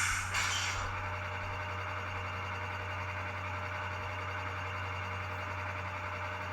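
Model locomotive sound decoder playing a diesel air-dryer effect: a sudden burst of air hiss lasting under a second, followed by a steady hiss over a low hum.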